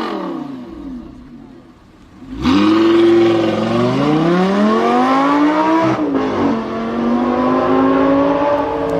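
A sports car's engine fades out with falling pitch. Then, about two and a half seconds in, a loud engine cuts in and revs up under hard acceleration. A quick drop in pitch about six seconds in, like a gear change, is followed by another climb.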